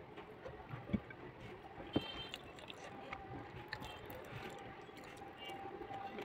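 Eating rice by hand from a plate: soft squishing of fingers mixing the rice, and chewing, with two sharp clicks about a second apart near the start.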